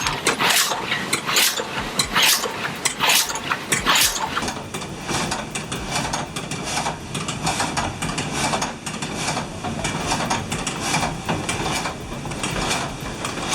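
Water-powered frame saw running, its vertical blade driven up and down by a connecting rod off the water-wheel shaft: a steady beat of knocks. Over the first few seconds there is roughly one heavy knock a second, then quicker, lighter knocks with a faint high whine.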